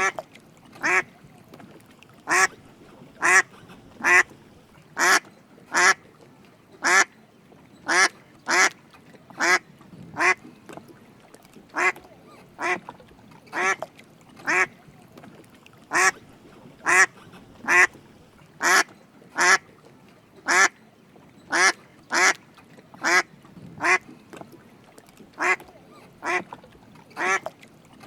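Drake mallard quacking: short calls repeated about once a second in a steady series.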